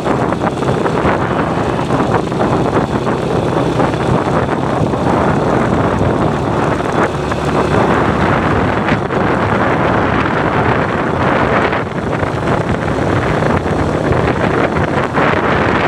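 Wind buffeting the microphone of a moving vehicle: a steady loud rush, with a low engine and road hum underneath.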